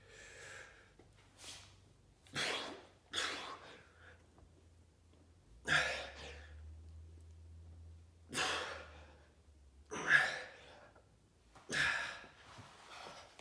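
A man breathing out hard through the mouth under exertion during his final reps of a chest-pressing set, about eight forceful exhales one to three seconds apart.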